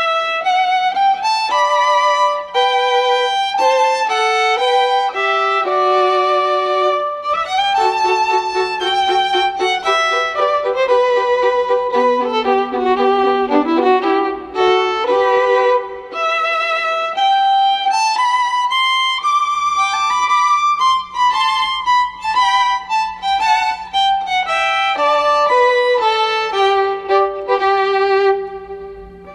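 Instrumental background music: a slow solo melody of sustained notes sung out with vibrato, moving step by step over a faint steady low tone, easing off briefly near the end.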